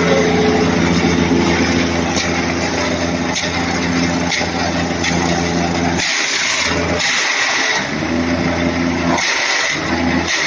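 Small gasoline engine driving a banana-stem chaff cutter, running steadily. From about six seconds in, several bursts of harsh shredding noise come as stem is fed through the blades, and the engine note drops away and climbs back between them as it takes the load.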